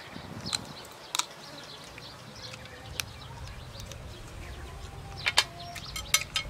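A person eating stir-fried snake meat by hand, chewing and picking it off the bone with her mouth. There are a few short, wet mouth clicks and smacks, spread out, with a small cluster near the end.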